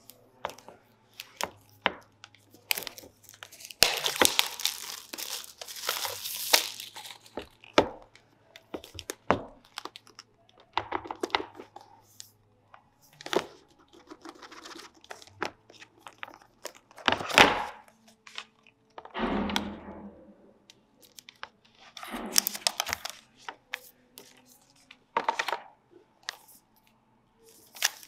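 Cardboard and paper packaging of an Apple Magic Keyboard being opened by hand: a longer tearing rustle about four seconds in, then scattered crinkles, taps and thunks as the box and keyboard are handled.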